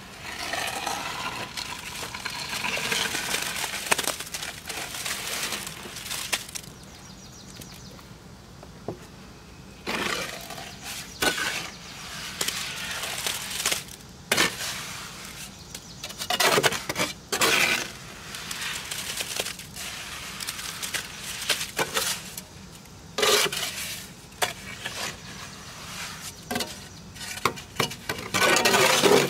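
Concrete mix sliding and scraping out of a tipped wheelbarrow into a post's form. It comes in several gritty pours a few seconds apart, the loudest near the end.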